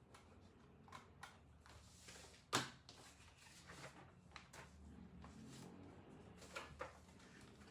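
Near silence with faint, scattered clicks and taps of small objects being handled at a study desk. The loudest is a sharper knock about two and a half seconds in.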